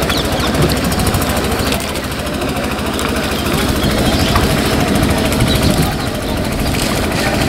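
A boat engine running steadily with a rapid low chugging.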